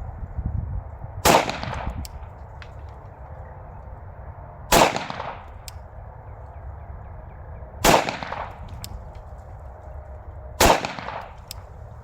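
Glock 19-pattern 9mm pistol with a PSA Dagger slide firing four single shots, roughly three seconds apart, each followed by a short echoing tail.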